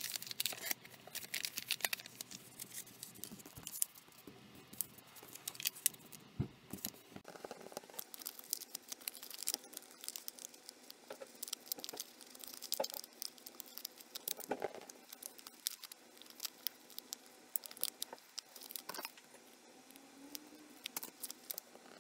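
Origami paper rustling and crackling in many short, irregular crinkles as hands fold and crease it, with a soft knock about six seconds in.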